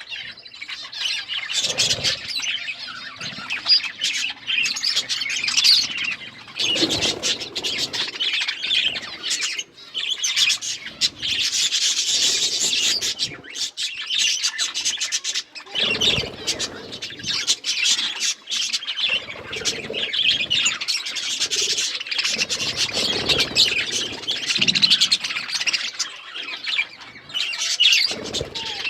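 A group of budgerigars chirping and chattering continuously in a dense, high-pitched warble, with a few short low rustles and knocks mixed in.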